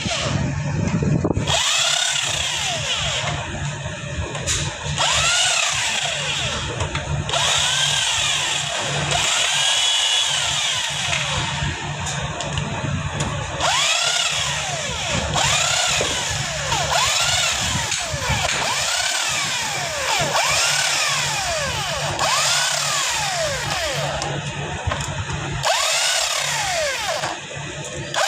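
A power drill spun up and let run down over and over, each short run rising and then falling in pitch, with a steady low hum underneath.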